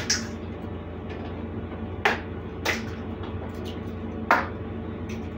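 Eggs being cracked against stainless steel mixing bowls: a handful of sharp taps, a quick pair at the start and then single taps about two seconds in, shortly after, and a little after four seconds, over a steady low hum.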